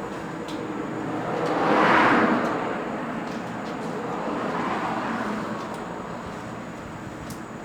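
Road traffic going by. One vehicle passes loudly, its sound swelling and fading about two seconds in, and a fainter one passes around five seconds.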